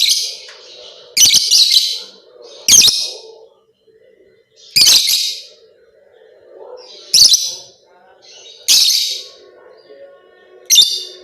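Lovebird giving loud, shrill chattering calls in short bursts, seven times, roughly every one and a half to two seconds, with a faint low murmur between the bursts.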